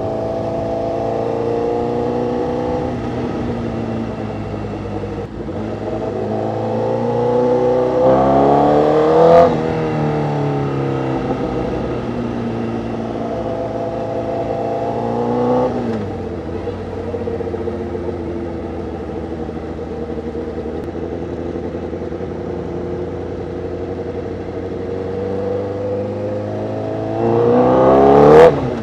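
A 2012 Honda CBR1000RR's inline-four engine running through an SC-Project aftermarket exhaust while riding. It holds a steady note at cruise, with three surges in revs about eight, fifteen and twenty-eight seconds in, each cut off sharply as the revs drop back.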